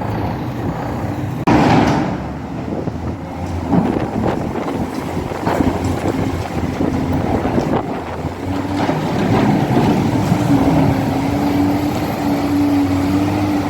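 Pickup truck's 6.5-litre turbo diesel engine running, with a loud thump about a second and a half in. The engine note becomes louder and steadier from about eight seconds in.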